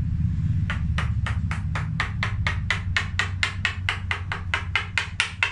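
Fast, even hammer-like taps, about five a second, starting about a second in, from carving broken dead wood out of an elm trunk. A low steady hum runs underneath.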